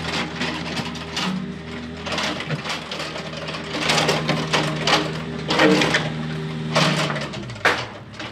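Volvo wheeled compact excavator's diesel engine running steadily while its bucket scrapes and crunches through loose soil, with repeated clanks and a sharp knock near the end.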